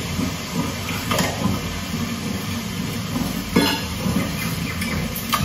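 Raw mutton being cut and handled on a wooden chopping stump: a few short, sharp knocks, about a second in and again about three and a half seconds in, over a steady low background.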